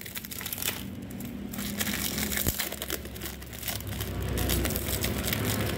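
Brown packing tape and paper wrapping crinkling and crackling as hands peel and crumple it off a plant pot.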